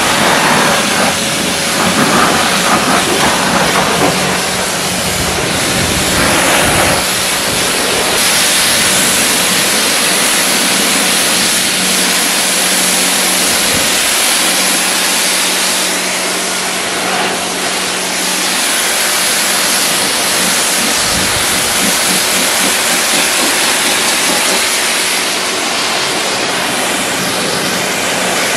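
Pressure washer jet spraying steadily, a loud hiss of water hitting first the wheel and then the mud-caked car body, with a steady low hum underneath.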